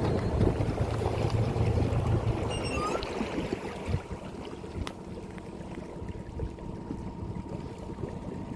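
A small boat under way on the water: a low steady hum over water sloshing, the hum easing off after about two and a half seconds, with a few short chirps near the middle.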